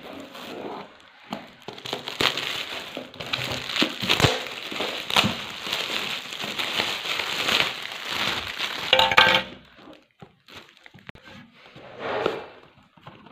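Shiny metallic foil gift wrap crinkling, crackling and tearing as it is pulled off a gift box by hand; the crackle dies down about ten seconds in.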